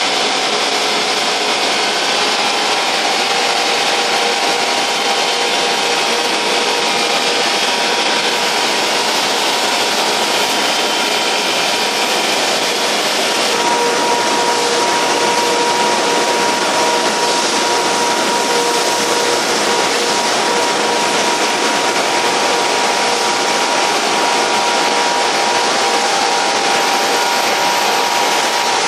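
A 150 HP combination wood chipper-shredder running steadily at full loudness, a dense machine noise with a few steady tones; the pitch of those tones shifts about halfway through.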